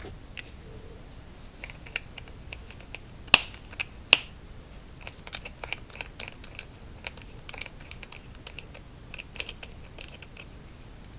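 Small sharp clicks and taps of bottles, a brush and tools being handled on a hobby workbench, two louder clicks about three and four seconds in, then a string of light ticks.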